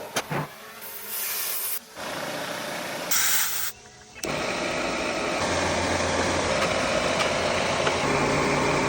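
A quick run of cut-together HVAC work sounds: short stretches of hiss and rubbing, then from about four seconds in a refrigerant recovery machine running steadily with a low hum.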